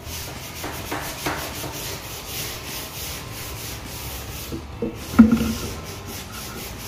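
Hands rubbing and sliding along white-laminated plywood drawer boards, a scratchy rubbing with a few light taps about a second in. A sharp wooden knock a little after five seconds in, as a board meets the drawer box.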